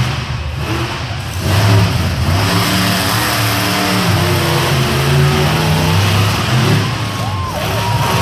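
Monster truck engines running loud and revving, their pitch rising and falling as the trucks accelerate and ease off across the dirt.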